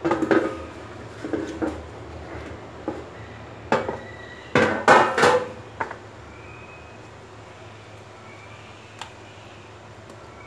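Metal roasting tray and dishes clattering and knocking against the counter as they are handled, a cluster of knocks over the first six seconds, loudest about five seconds in, then one small click near the end.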